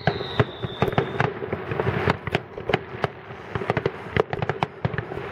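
Fireworks display: aerial shells bursting in a rapid, irregular string of bangs and pops, several a second, with a high whistle sliding down and fading about a second in.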